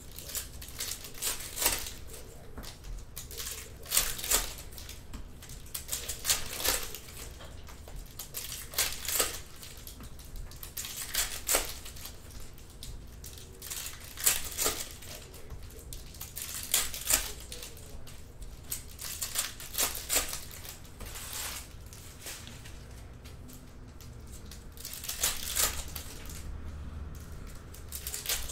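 Plastic wrappers of baseball card packs being torn open and crinkled, in short crackling bursts every two to three seconds.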